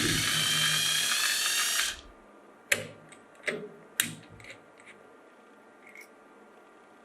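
A small electric power tool runs with a high motor whine, then cuts off about two seconds in. A few sharp clicks and knocks follow.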